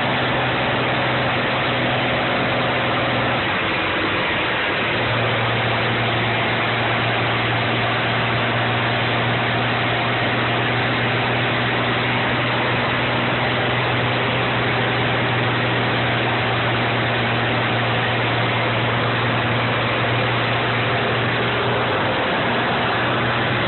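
M35A2 deuce-and-a-half army truck's turbocharged multifuel diesel engine running steadily. Its low hum drops out briefly about three seconds in and again near the end.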